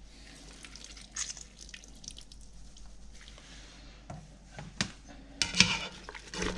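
Orange juice squeezed by hand, dripping into a pot. About five seconds in, a spatula starts stirring through the mixture, scraping the pot.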